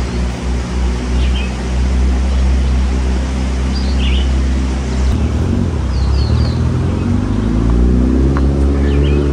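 Low hum of a motor vehicle's engine that changes pitch about five seconds in and rises over the last few seconds, as if accelerating. Short bird chirps come through now and then.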